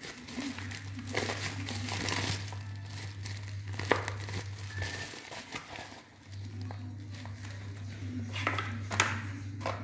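Plastic courier bag and packing tape crinkling and crumpling as a small parcel is handled, in two long stretches with a short pause between them, with two sharp clicks.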